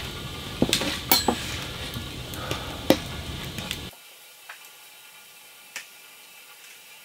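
Fork clinking and scraping on a metal plate while eating, with several sharp clinks over a steady hiss in the first four seconds; the hiss then cuts out and only a couple of faint taps follow.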